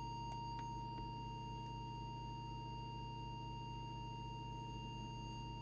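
Steady, unwavering test tone at about 1 kHz from a small audio oscillator, used to modulate a Midland M5 CB radio for an AM modulation check. A low buzzing hum runs underneath, with a few faint clicks in the first second.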